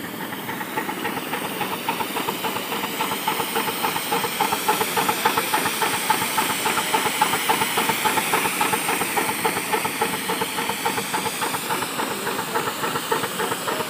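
Miniature 4-inch scale Burrell steam traction engine running, its exhaust beating in rapid, even chuffs over a steady hiss of steam. The sound grows a little louder over the first couple of seconds, then holds steady.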